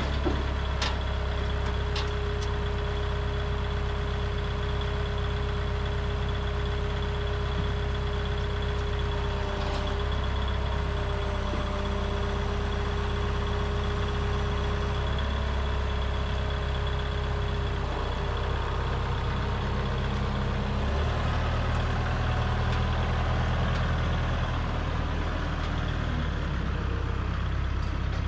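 Kubota M5660SU tractor's diesel engine running steadily, its note rising and getting a little louder about twenty seconds in as the tractor moves off with a stack of lumber on its forks.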